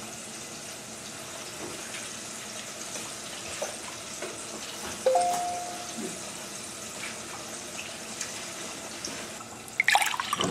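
Crispy-battered chicken pieces frying in olive oil in a pan, a steady sizzle. A short tone sounds about halfway, and a clatter near the end is the loudest moment.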